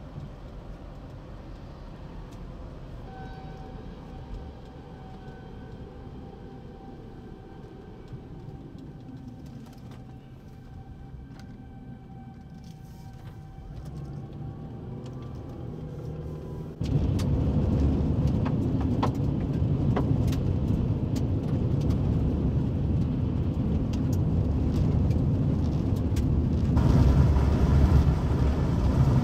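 Low rumbling wind and vehicle road noise. It starts faint with a thin steady tone above it, then jumps sharply louder about halfway through and stays loud.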